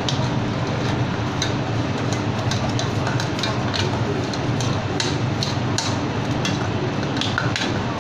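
Metal spatula scraping and clicking against a stainless steel saucepan as curry paste is fried in coconut milk, with irregular sharp clicks over a steady rushing gas burner.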